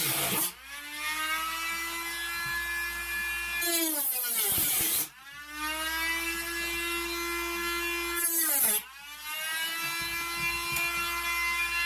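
Cordless Dremel rotary tool with a cutting disc, cutting a notch in wood. Its high-pitched whine runs in bursts: three times, about half a second in, about five seconds in and near nine seconds, it winds down with a falling pitch, then spins back up with a rising pitch.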